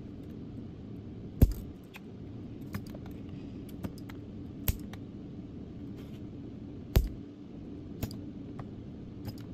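Sequre SQ-SW3 capacitor spot welder firing its weld pulses through a trigger pen into thin pure nickel strip on lithium cells. There are sharp snaps about a second and a half in, near five seconds and at seven seconds, with fainter clicks between them over a steady low hum.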